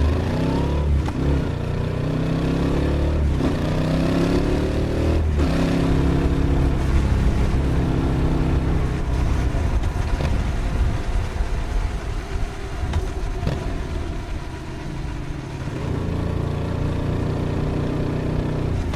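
Yamaha XSR700's crossplane parallel-twin engine accelerating, its pitch climbing and dropping back three times in the first five seconds as it shifts up, then running at a steadier pitch.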